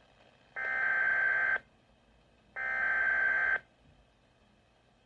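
Two bursts of a Weatheradio Canada SAME digital alert header, each about a second long and a second apart: a buzzy data signal sitting on two high tones.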